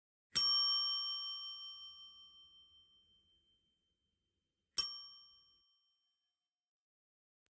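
Two metallic strikes that ring with clear bell-like tones: the first, about half a second in, rings out for over two seconds, and the second, near five seconds, is shorter and fades quickly.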